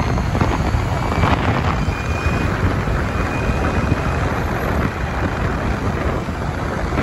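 Steady rush of wind and road noise from an Ather 450X electric scooter riding at about 70 km/h, with a faint high whine that comes and goes.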